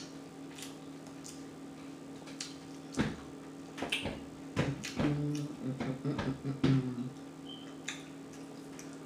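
Close-up mouth sounds of eating: scattered sharp lip-smacking and chewing clicks, with a short low closed-mouth hum in the middle, over a steady faint electrical hum.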